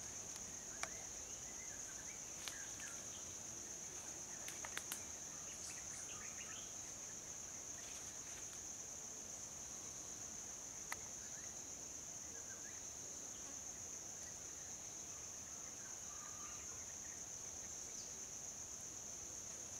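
A steady, high-pitched insect drone fills the forest, with a few sharp clicks and faint short chirps scattered through it.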